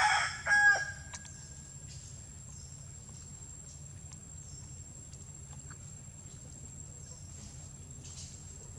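A rooster crowing, its call ending with a falling note within the first second. After it, a steady high insect chirring over a low outdoor hum, with a few faint clicks.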